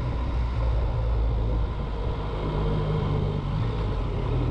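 Yamaha MT-09's 847 cc three-cylinder engine running at low road speed over a steady rush of road noise, its note shifting about halfway through.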